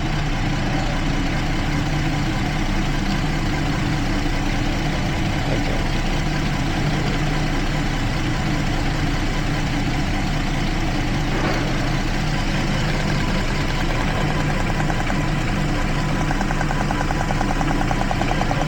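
2012 Jeep Liberty V6 engine idling steadily with a misfire on cylinders 1 and 5, which the mechanic traces to a worn ignition coil boot letting the spark arc through.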